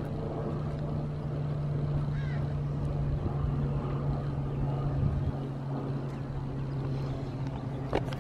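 Steady low machine hum over a low rumble, like a motor running without change, with a couple of light clicks near the end.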